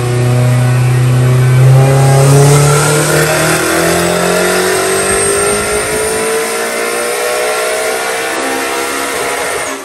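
Honda S2000's turbocharged four-cylinder engine running a full-throttle pull on a chassis dyno, the revs climbing steadily with a high whine rising alongside. It cuts off suddenly at the end.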